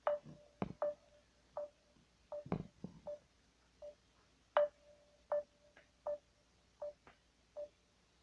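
A phone giving a series of short single-pitch beeps, each beginning with a click, about one every half second to one second, while a call to a contact is being placed.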